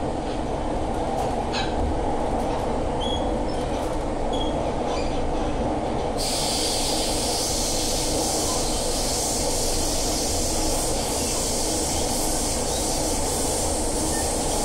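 Siemens C651 metro car running at speed, heard from inside the car: a steady rumble and running noise with a low hum, and a few brief high squeaks in the first few seconds. About six seconds in, a steady high hiss comes in suddenly and stays.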